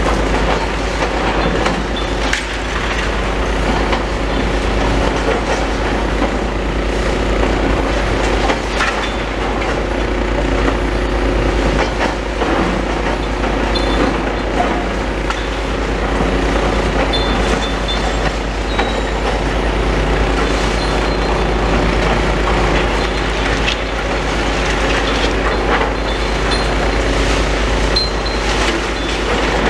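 Demolition excavator's diesel engine running steadily under load, with irregular knocks and clattering of concrete and rubble as the machine pulls the building down.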